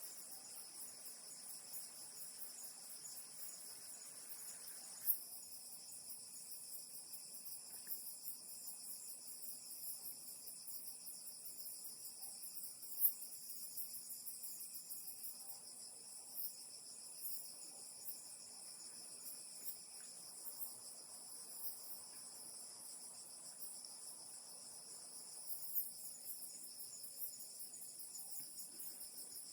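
Chorus of insects, crickets among them, trilling steadily in several overlapping high pitches, with a couple of brief faint ticks.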